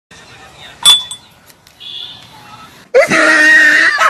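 A sharp clink of a metal spoon against a drinking glass about a second in, then from about three seconds a loud, held, scream-like cry.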